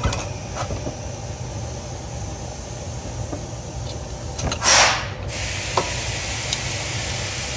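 Light metallic clicks and scraping as a flathead screwdriver is worked in behind the brake pad at the caliper to push the piston back, over a steady low hum. About five seconds in comes a short, loud rush of noise, the loudest sound here.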